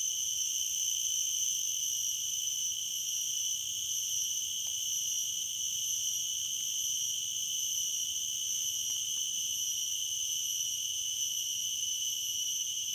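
Cicadas (garengpung) calling in a steady, unbroken high-pitched drone, with a few faint ticks in the background.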